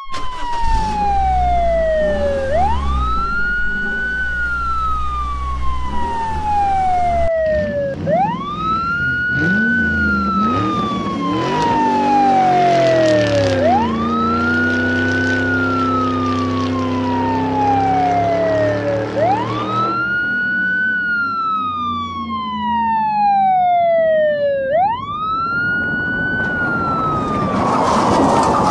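An emergency-vehicle siren wailing: each cycle rises quickly, then falls slowly, about every five and a half seconds. A car engine runs underneath it.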